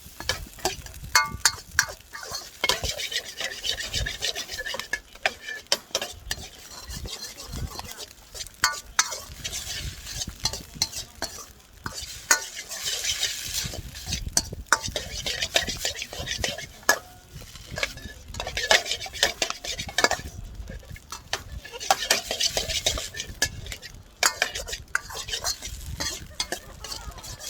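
Fried rice being stir-fried in a wok: a utensil scraping and knocking against the pan in many quick clicks, over sizzling that swells in stretches.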